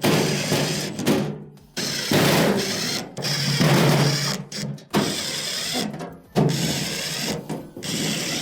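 Cordless drill/driver running in several short bursts, each about a second long, as it drives screws into the washer's rear panel.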